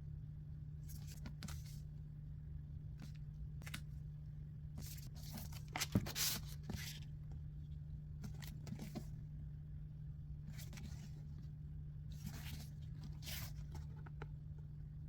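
Packaging being handled and unwrapped: short bursts of rustling and crinkling, with a louder knock and rustle about six seconds in, over a steady low hum.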